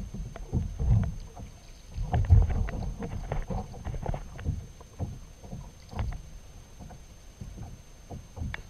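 Ocean water lapping and slapping against a kayak hull: irregular low thumps and splashes, with some wind on the microphone.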